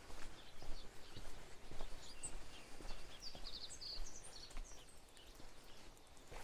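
Footsteps of someone walking on a wet path, faint soft steps about one every half second or so, with small birds chirping in short high notes now and then.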